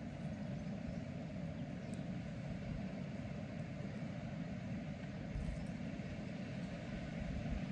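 Wind buffeting the microphone: a steady, uneven low rumble that grows stronger near the end.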